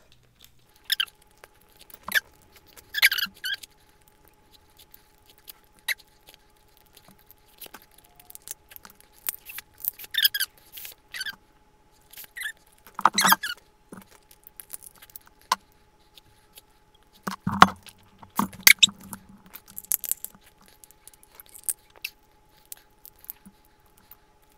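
Snow crab shells being cracked and picked apart by hand, with scattered sharp cracks and wet, squeaky mouth sounds of eating the crab meat. The loudest cracks come about halfway through and a few seconds later.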